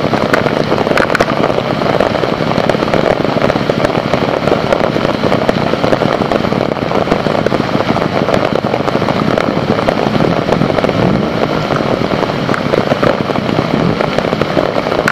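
Heavy rain falling, a loud, steady, dense crackle of drops with many sharp single drop hits through it.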